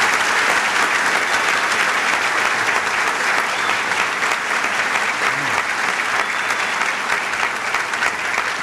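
A large audience applauding steadily, with a few faint voices mixed in, easing slightly near the end.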